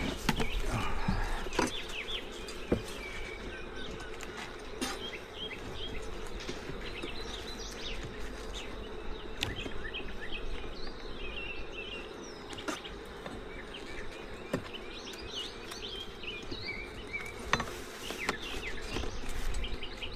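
Honeybees buzzing around an opened hive, a steady hum, with occasional sharp clicks.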